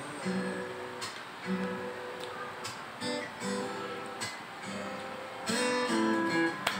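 Background music: an acoustic guitar plucking and strumming.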